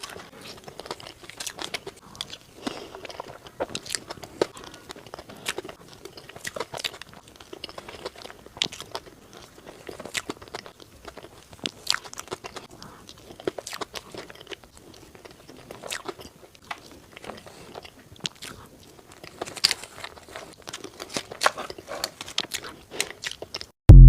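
Close-up eating sounds: irregular crisp crunches of bites and chewing of crunchy food. Music starts abruptly at the very end.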